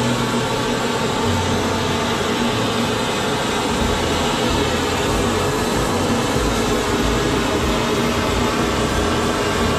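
Hand-held LPG burner torch, fed by hose from a gas tank, burning steadily as it singes the hair off a hanging goat carcass.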